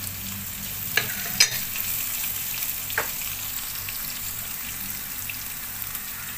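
Onions, cashews, dal and curry leaves frying in oil in a nonstick kadai: a steady sizzle while a silicone spatula stirs, with a few sharp clicks, the loudest about a second and a half in.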